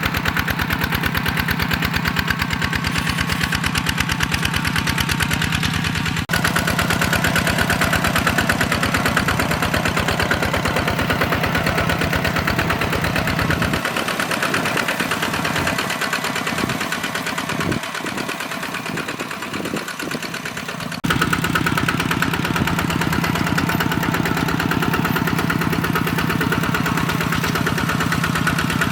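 Single-cylinder diesel engine of a walk-behind hand tractor running steadily with a rapid knocking beat, with two abrupt changes in its sound, about six seconds in and again near twenty-one seconds; the deep low end drops away for a stretch before the second change.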